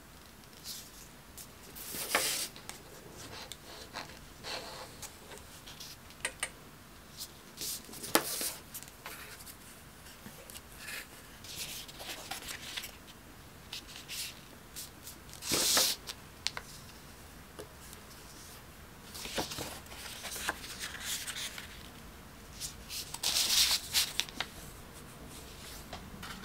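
Paper being folded, creased and rubbed flat by hand on a cutting mat: irregular rustles and scrapes with a few light clicks, loudest about halfway through and near the end.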